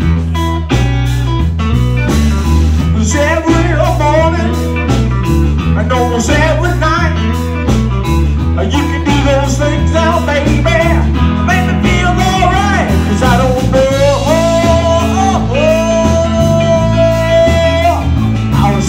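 Live blues band: an electric guitar solo with bent, wavering notes over bass guitar and drums, ending in one long held note near the end.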